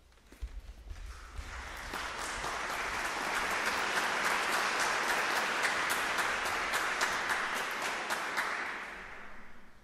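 Audience applauding, building up over the first two seconds and dying away near the end.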